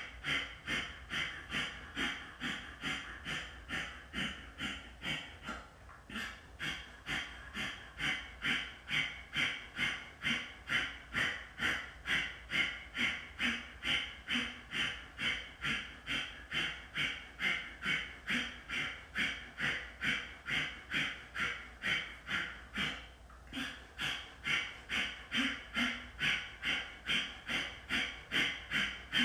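Kapalabhati breathing: rapid, forceful exhalations puffed out through the nose in a steady rhythm of roughly two or three a second. The run breaks off briefly twice.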